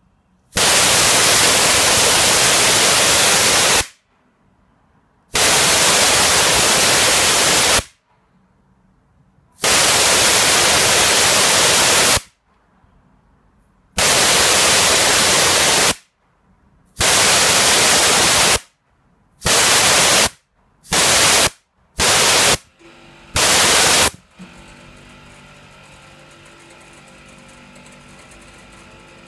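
Compressed air blasting out of a Clarke Shhhh compressor's tank fitting in nine sharp-edged hissing releases, the later ones shorter and closer together. About 24 seconds in, the compressor's low-noise motor starts and runs steadily and much more quietly than the air blasts.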